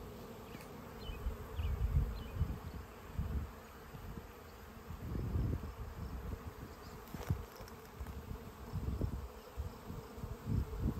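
Many honey bees flying around their hives, a steady busy hum, with irregular low rumbling underneath.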